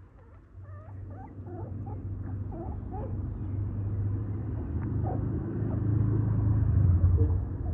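Young puppies whimpering in short, high squeaks, most of them in the first few seconds, over a low rumble that grows louder toward the end.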